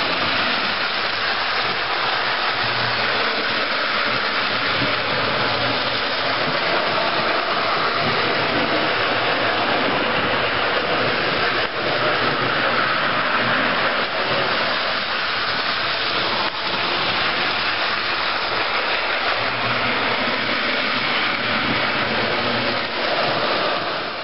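Lionel 1700E Junior electric toy train running steadily along its track, a continuous noise of motor and wheels. It dips briefly twice and fades out near the end.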